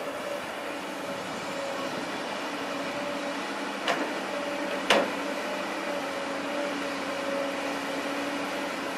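Long-reach hydraulic excavator running steadily, its engine and hydraulics giving a continuous machine noise with a faint whine. Two sharp knocks come about four and five seconds in, the second the louder.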